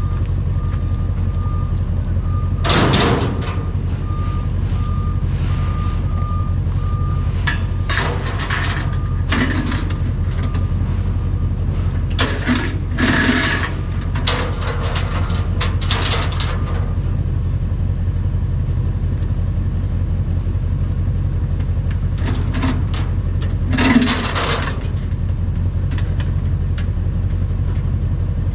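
Heavy-equipment diesel engine running steadily, with a backup alarm beeping for the first several seconds and then stopping. Several short metallic clanks and scrapes come over the engine, the loudest about 24 seconds in.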